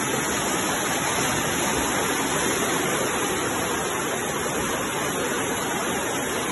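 Floodwater rushing down a street in a fast, foaming torrent: a steady, loud wash of water.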